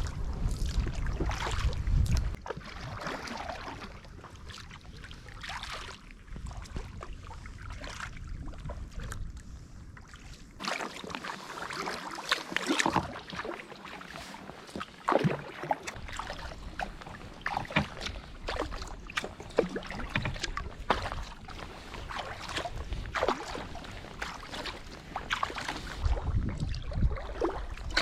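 Kayak paddling: irregular splashes and drips of water from paddle strokes. Wind buffets the microphone at the start and again near the end.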